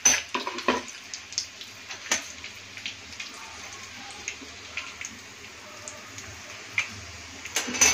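Breaded chicken lollipops deep-frying in hot oil: a steady sizzle with frequent crackles and pops, a few louder pops about two seconds in and near the end.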